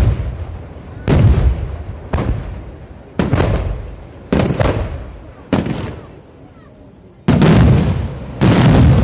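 Aerial fireworks shells bursting in a steady series, about one boom a second, each trailing off in a rolling echo. After a short lull, heavier and longer bursts follow close together near the end.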